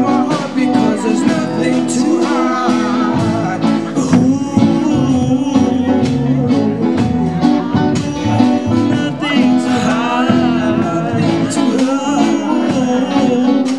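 Live band playing a smooth groove song with a singer's voice over it.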